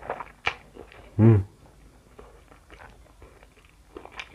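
Mouth sounds of eating instant noodles: wet smacks as noodles are drawn in off chopsticks, a short hummed "mm" about a second in, then quiet chewing.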